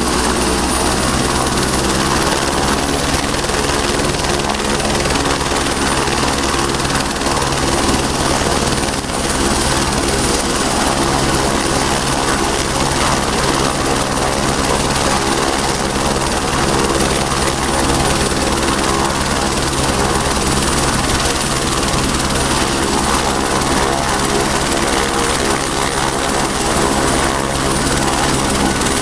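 Helicopter's engine and rotor running steadily while it sits on the ground.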